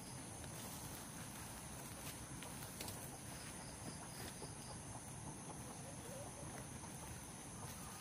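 Steady, high-pitched drone of insects, with a short run of faint chirps about halfway through and a few light clicks.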